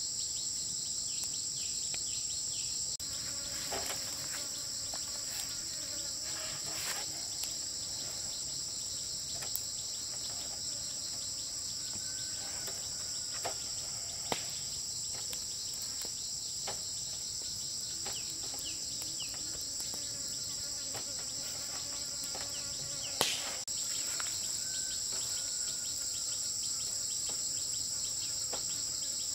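Steady, high-pitched insect chorus, unbroken throughout, with a few faint clicks and one sharper tick late on.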